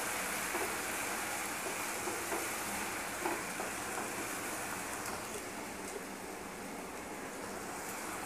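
Sliced onions sizzling steadily in hot oil in a steel kadhai, stirred with a wooden spatula that gives a few light scrapes and taps against the pan.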